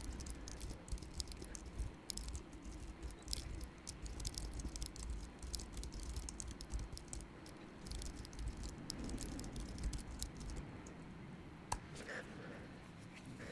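Typing on a computer keyboard: a quick, faint run of key clicks that thins out about ten seconds in, then a single sharper click near the end.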